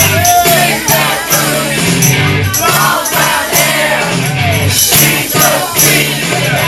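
Music: a song with a singing voice over a stepping bass line and a steady beat.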